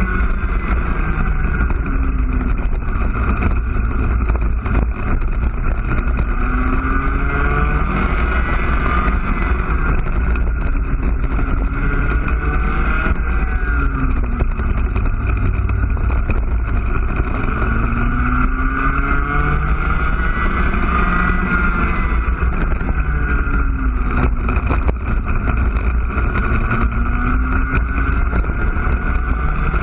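IAME two-stroke cadet kart engine at full race load, its pitch climbing and falling again and again as the kart accelerates and slows through a lap. The revs drop to about 5,800 rpm around the middle and climb back past 10,000 rpm.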